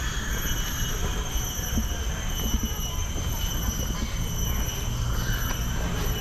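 Insects droning in tropical woodland, a steady high-pitched whine held on several unchanging pitches, over a low rumble.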